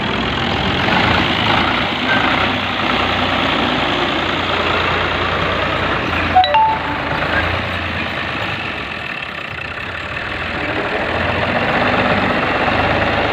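Diesel farm tractor engine running steadily as it drags a rear scraper blade through loose soil. A brief sharp click and a short beep come about halfway through.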